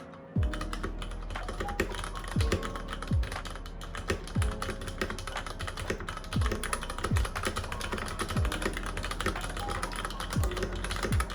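Fast, continuous typing on a Varmilo Pro Panda 65% mechanical keyboard with Cherry MX Brown switches and PBT keycaps: a steady clatter of key presses.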